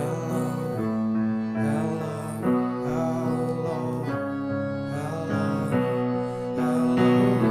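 Slow music of held keyboard chords, each chord sustained and changing about every second or so.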